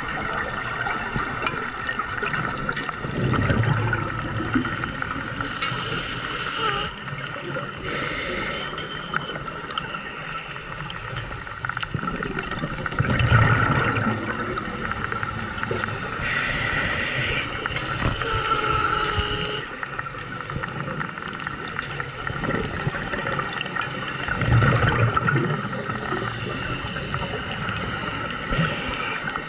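Underwater scuba ambience from a diver's regulator: short hissing inhalations and rumbling bubbly exhalations over a steady watery hiss. Three exhalations, spaced about ten seconds apart, are the loudest.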